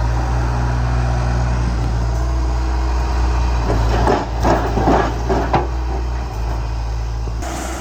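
Diesel engine of a wheeled rotary drilling rig running steadily, with a run of clanks and knocks about four to five and a half seconds in.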